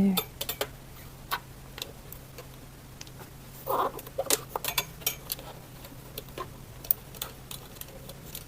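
Scattered light clicks and taps of a studio light and its stand being handled and adjusted into position, with one short louder knock a little under four seconds in.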